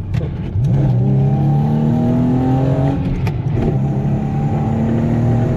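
Infiniti G37 sedan's 3.7-litre V6 pulling under acceleration, its pitch rising for about two seconds, then dropping at a gear change about three seconds in before it pulls on again in the next gear.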